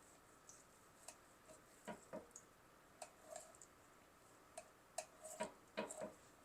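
Faint, irregular clicks and taps of kitchen utensils handling sliced steak, sparse at first and coming closer together in the last two seconds.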